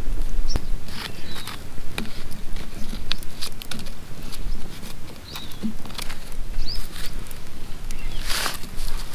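Campfire of dry branches crackling, with irregular sharp snaps and pops. A low rumble runs underneath, and there is a brief louder rush near the end.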